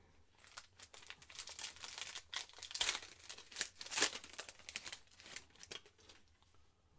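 Foil wrapper of a Panini Mosaic football card pack crinkling and being torn open by hand: a run of crackles and rips, loudest around the middle.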